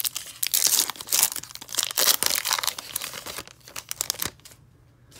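Wrapper of a trading card pack crinkling and tearing as it is opened by hand, a dense run of crackles that thins to a few clicks about four seconds in.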